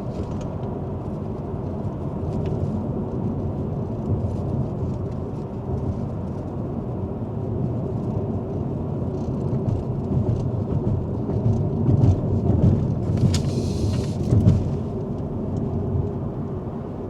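Alpine A110 on the move: a steady low rumble of its 1.8-litre turbocharged four-cylinder and road noise, swelling a little louder about three-quarters of the way through.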